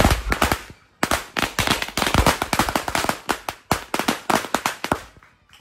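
A Judas belt, a string of firecrackers, going off in a fast, uneven run of sharp cracks. It breaks off briefly about a second in, then crackles on densely and thins out near the end.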